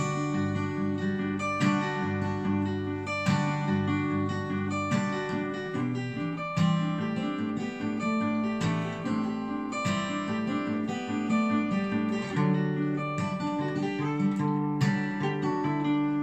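Two acoustic guitars playing a slow ballad together, picked and strummed chords with melody notes ringing over them, without singing.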